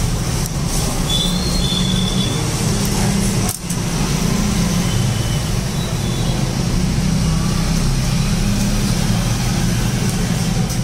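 Steady roadside traffic noise, a low rumble with hiss, dipping briefly about three and a half seconds in.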